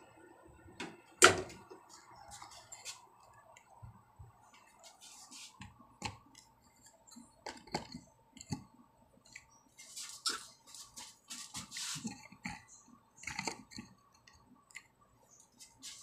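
Scattered light clicks, taps and scrapes of handling a plastic washing-machine door lock assembly, with the sharpest click about a second in and a busy run of clicks near the end.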